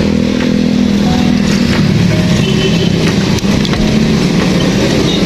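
Steady wind and road rumble from riding a bicycle along a paved street, with a steady low hum under it and a few faint ticks.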